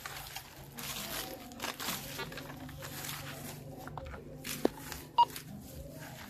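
Irregular rustling and scraping of digging for a metal-detector target, with one short electronic beep from the metal detector about five seconds in.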